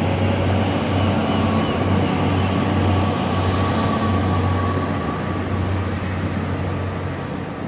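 Train running past, a steady rumble with a low hum underneath, easing off slightly near the end.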